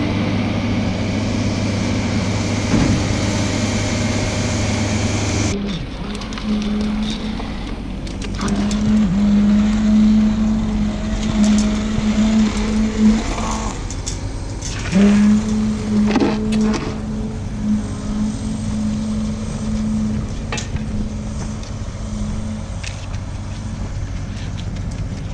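Heavy construction machinery with a diesel engine running steadily. About five seconds in the sound changes abruptly to a lower, steadier drone that shifts pitch now and then, with scattered knocks and clanks.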